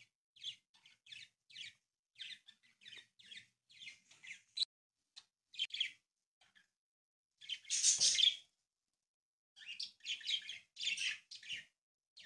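A sheet of paper rustling and crinkling in short scrapes as fingers press and crease a fold, the loudest scrape about eight seconds in.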